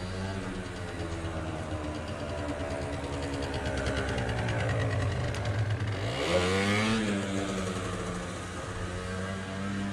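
A motor vehicle engine running close by, its pitch climbing about six seconds in as it revs up, then holding a little higher.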